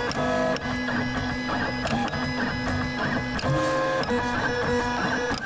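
3D printer stepper motors whining at pitches that shift every fraction of a second as the print head moves, mixed with music. It cuts off suddenly at the end.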